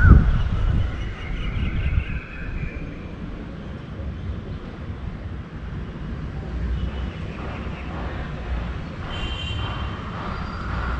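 Steady rumble of city road traffic with wind buffeting the microphone, strongest in the first couple of seconds.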